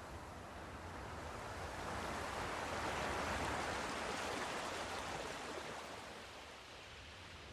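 Sea surf: a wave breaking and washing in, swelling to a peak about three seconds in and then fading away.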